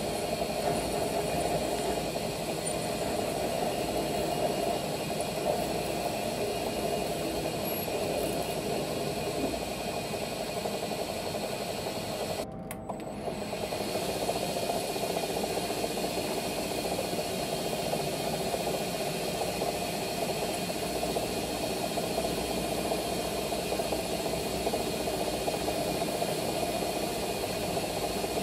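Metal lathe running steadily with its collet chuck spinning, as a tool bit turns and cuts off a short nickel stem; a steady machine hum with a brief drop about halfway through.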